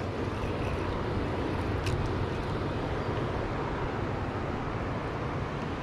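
Steady rushing outdoor noise with a brief click about two seconds in.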